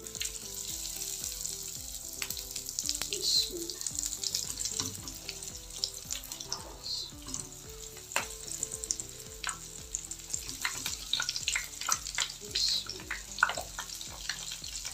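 Lentil kababs frying in hot ghee in a frying pan: a steady sizzle with many sharp crackles as each one is laid into the fat.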